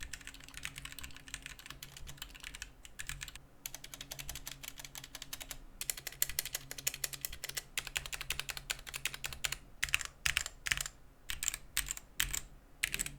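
Typing on a Gamakay K61 60% mechanical keyboard with Gateron Yellow linear switches: a fast, continuous run of keystrokes, then slower, separate and louder keystrokes in the last few seconds.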